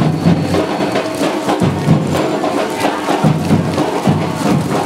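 Lively percussion-led music: rapid, dense drum and wood-block strokes over a continuous band sound.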